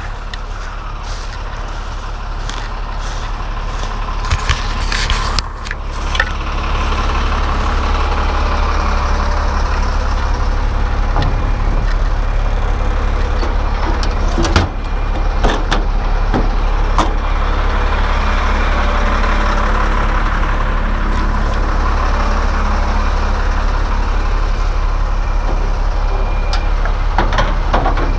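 A small engine idling steadily, with a few knocks and clicks over it. The drone gets louder about six seconds in.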